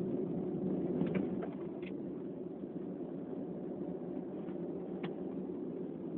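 Steady low background hum, with a few faint, brief high sounds at about one, two and five seconds in.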